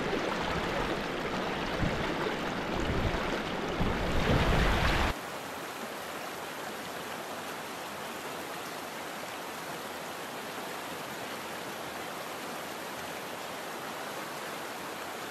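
Small creek's water running over riffles: a full rushing sound with uneven low rumble for about five seconds, then an abrupt cut to a softer, steadier rush.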